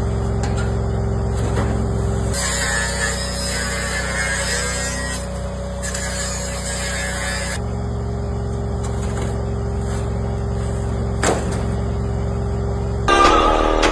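An engine runs steadily throughout, with a hiss over it that starts and stops abruptly in spliced-together stretches. Music starts near the end.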